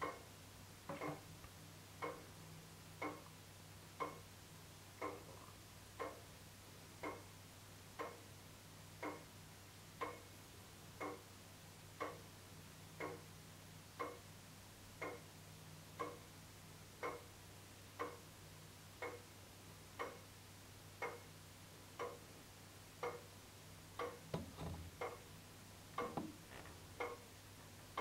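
Deadbeat escapement of a circa-1860 Dent astronomical regulator longcase clock ticking steadily, about one evenly spaced tick a second. A few extra soft knocks break in near the end.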